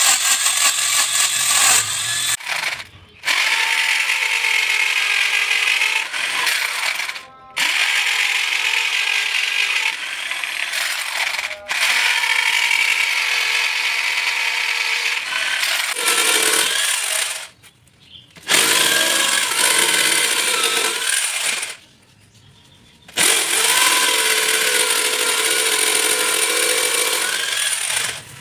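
Corded electric drill, mounted in a homemade wood-mortising jig, running with its bit boring into a wooden block. The drilling stops briefly about five times.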